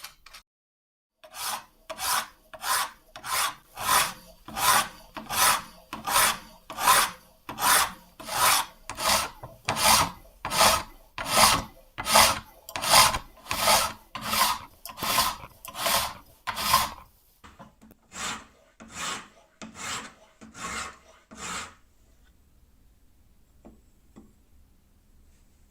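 Hand file rasping across a steel knife blade to cut the bevel, in steady even strokes about one and a half a second. Near the end the strokes turn fainter and slower, then stop.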